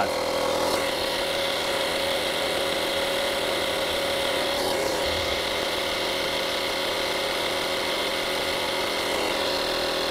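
VacLife 12-volt portable tire inflator's compressor running steadily as it pumps air into a car tire toward its 35 PSI set point: an even drone with a strong hum tone.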